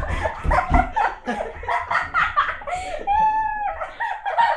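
Young people laughing hard in quick bursts, with a brief high-pitched squeal about three seconds in.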